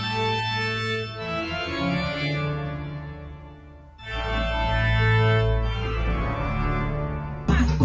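Organ music: sustained chords fade away, then a louder chord with a deep bass comes in about halfway through. It gives way to different, beat-driven music near the end.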